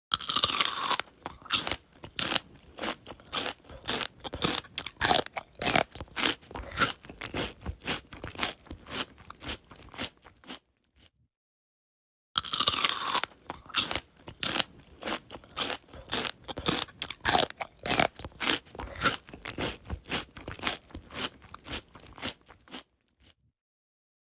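A person biting into mango and chewing it close to the microphone, in two bouts separated by a pause of about two seconds. Each bout opens with a loud crunchy bite and goes on in quick chewing strokes that grow fainter.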